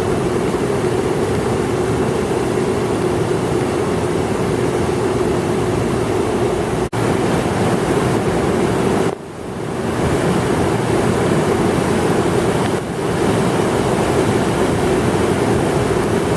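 Floodwater rushing loudly in a swollen campus creek, a steady roar of water broken by short cuts about 7 and 9 seconds in.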